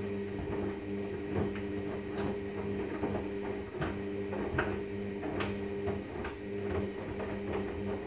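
Hoover Vision washing machine in the main wash of a synthetics cycle, its drum motor humming steadily as the laundry tumbles through the water. Scattered short clicks sound through it.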